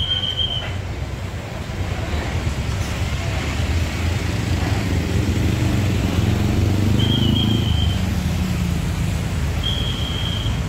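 Tour bus diesel engine rumbling close by, growing louder toward the middle and easing off near the end. Two brief, faint high tones are heard late on.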